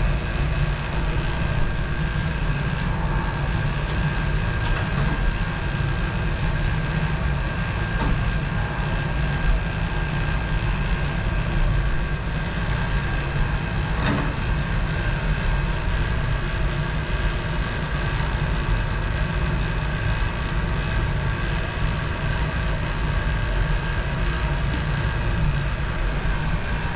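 Vacuum pump of a glass vacuum line running steadily: a constant low hum with a few steady higher tones on top.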